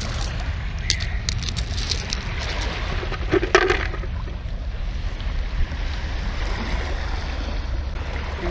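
Beach pebbles clicking and clacking against each other as a hand sorts through them, mostly in the first few seconds, with a brief louder clatter about three and a half seconds in. A steady low rumble underneath, with wind on the microphone and lake water.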